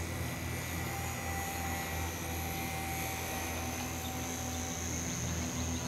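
Radio-controlled HobbyZone Super Cub LP floatplane in flight, its electric motor and propeller making a steady buzzing hum.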